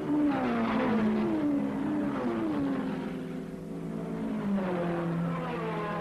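Racing sports car engines passing at speed, each engine note falling in pitch in a series of steps as the cars go by.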